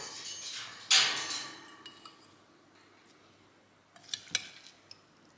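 A metal spoon scraping and clinking against a blender jug and a white ceramic bowl as chopped vegetable-and-fruit mash is spooned out: a loud scrape about a second in, then two light clinks near the end.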